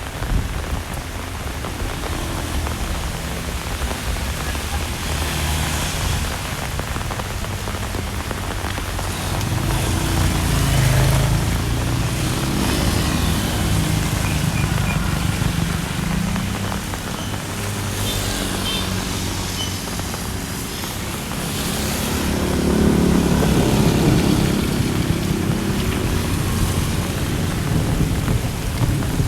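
Heavy rain falling steadily on surfaces, with the low hum of a vehicle engine under it that swells twice, about ten seconds in and again near twenty-three seconds.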